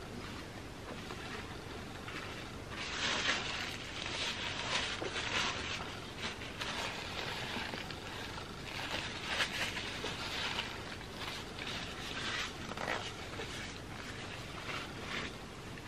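Eating sounds: chewing and mouth noises in irregular bursts, with a quieter stretch around the middle.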